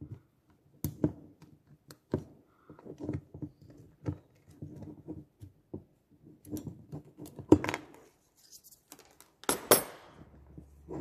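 Light metallic clicks and knocks from small engine parts and a pair of scissors being handled, including snips as a plastic cable tie around a chainsaw piston and cylinder is cut. The loudest sharp clicks come in the second half, ending in a clatter as the scissors are set down on the table.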